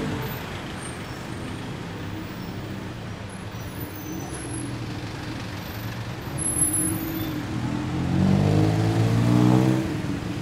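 Road traffic passing close by on a city street. Near the end one vehicle's engine passes louder, its pitch rising slowly as it goes.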